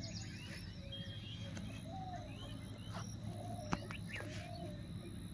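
Birds calling with short repeated chirps over a steady low background hum, with one sharp click about two-thirds of the way through.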